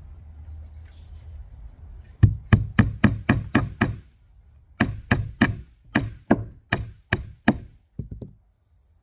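A hammer striking the platform in two runs of quick, sharp blows, the first run about four a second, then two lighter taps near the end.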